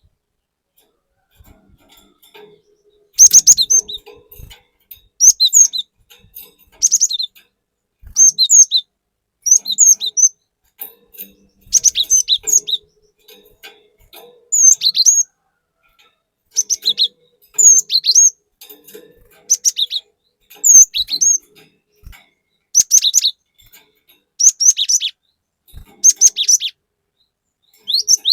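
Cinereous tit (glatik batu) singing: short, sharp, high-pitched phrases repeated every second or two, starting about three seconds in.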